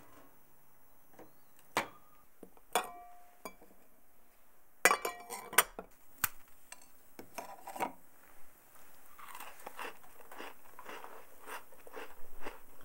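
Crisp sablé nantais butter cookies crunching: a few sharp clicks with a short ring in the first half, then a run of dense crunches in the last few seconds.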